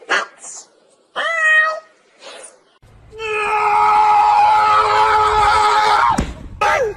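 Kitten mewing: a few short high mews, then a long drawn-out meow of about three seconds that falls away at the end, and one more short falling mew.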